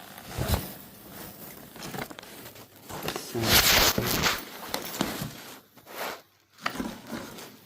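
Packaging and tent fabric being handled and unpacked: irregular rustling and crinkling, with one louder rasp lasting about a second, about three and a half seconds in.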